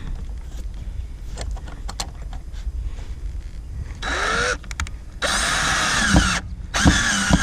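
Power drill run in three pulls of the trigger, a short one and then two longer ones, each motor spinning up, as it works a screw or hole for a door latch; a few light clicks come before it.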